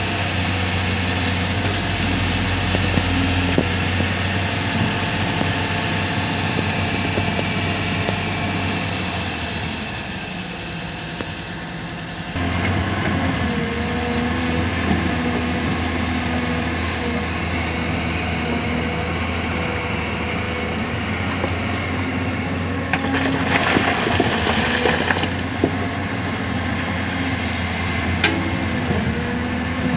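Heavy diesel engine of an excavator working, running steadily. About three quarters of the way through comes a two-second burst of rattling and scraping.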